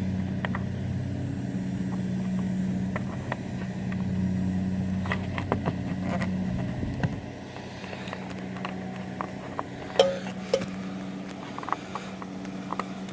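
2003 Chevrolet Trailblazer running at idle, a steady low hum that drops in level about seven seconds in. Over it are small clicks and taps of an LED license plate bulb being handled and pushed into its plastic socket, with one sharper click about ten seconds in.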